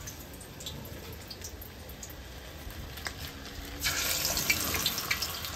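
Floured mullet pieces frying in hot oil in a large pot: a faint steady sizzle, then about four seconds in a sudden louder, crackling sizzle as another piece is lowered into the oil.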